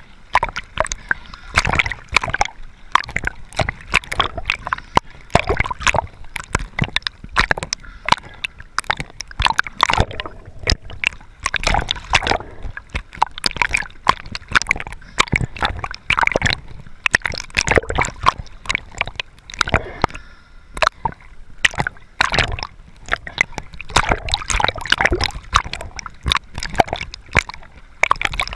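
Sea water splashing and sloshing around a camera held at the surface, with the lens dipping in and out: an irregular, dense run of sharp splashes.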